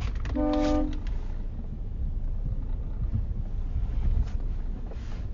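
Mercedes ML 250 on the move: a steady low rumble with a few faint knocks, the minor front suspension noise being demonstrated. A brief pitched tone sounds about half a second in.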